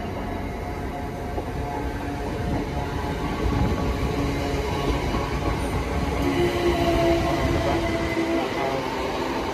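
Great Northern Class 387 electric multiple unit pulling away and running past at close range, its wheels and running gear rumbling on the track and growing louder as it passes. A steady tone joins the running noise about six seconds in.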